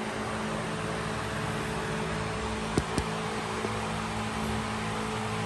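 Steady mechanical hum, with two sharp clicks close together about three seconds in and a fainter click just after.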